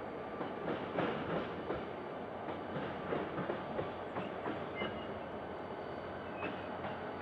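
Diesel locomotive No. 7369 rolling through a rail yard, its wheels clacking irregularly over rail joints and switch points, most thickly in the first few seconds. Two brief, thin wheel squeals come later.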